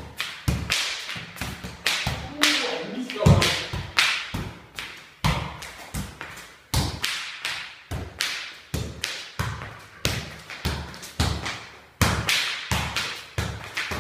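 A football being juggled: a steady run of thuds as the ball hits foot, knee and thigh, about two to three touches a second, each with a short echo.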